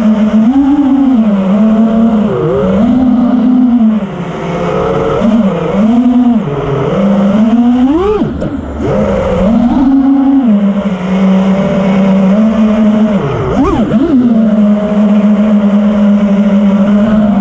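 FPV quadcopter's four brushless motors (T-motor F40 2306 2600kv spinning Ethix S4 props) whining steadily, the pitch swooping up and down as the throttle is punched and chopped through freestyle moves, with a sharp climb about eight seconds in and a quick rise-and-fall near the end.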